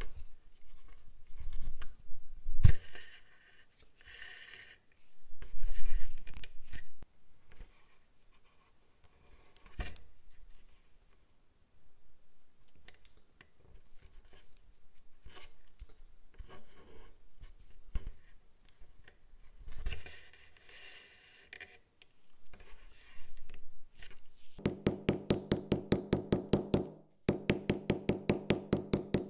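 Leather being hand-stitched: thread drawn through the leather in short hissing pulls, with light knocks and rustles of the workpiece. Near the end a small metal hammer taps quickly and evenly on the stitched leather, in two runs with a brief pause, flattening the stitches.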